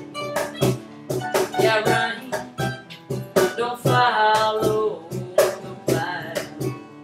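Acoustic folk music: a guitar strummed in a steady rhythm with a voice singing long, held notes over it.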